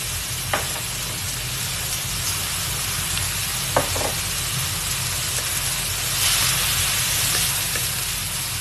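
Food sizzling steadily as it is stir-fried in a pan, with a few sharp clicks of the spatula against the pan. The sizzle swells louder about six seconds in.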